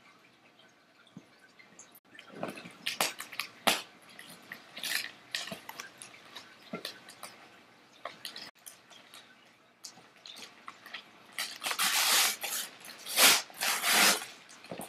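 Gift wrapping paper crinkling and tearing as a present is unwrapped, in irregular bursts that grow busiest and loudest near the end.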